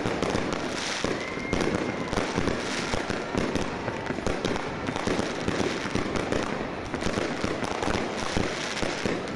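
Aerial fireworks display: a dense, continuous barrage of bangs and crackling from many shells bursting overhead.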